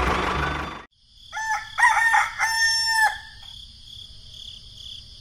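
A rooster crowing once, a broken call that ends in a long held note, after a louder sound cuts off about a second in. A faint steady high hiss follows.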